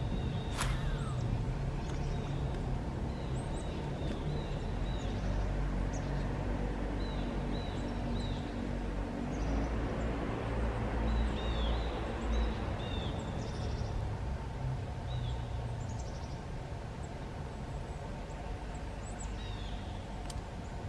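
Small birds chirping repeatedly in short, hooked calls over a steady low rumble, with one sharp click about half a second in.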